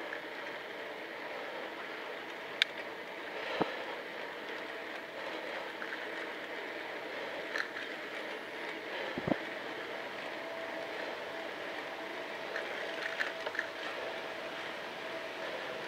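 Bicycle in motion: a steady rush of wind and tyre noise on an action camera's microphone, with a few sharp clicks and knocks from the bike going over bumps. A faint steady whine joins about two-thirds of the way through.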